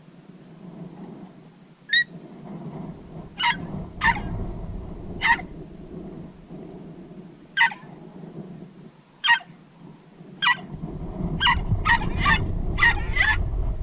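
Jack Russell terrier giving short, high-pitched yips, one at a time every second or two, then quickly in a rapid run near the end. A low rumbling noise underneath grows louder toward the end.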